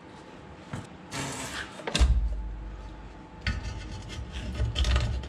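Knocks, clicks and scraping of hands and tools working a steering rack into place under a car, with a sudden deep rumble starting about two seconds in and running on.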